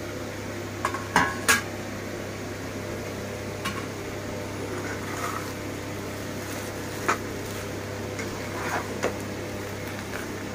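A pan lid taken off with a couple of sharp clanks about a second in, then a metal spatula stirring and scraping potato bhaji in a frying pan, with a few scattered knocks against the pan.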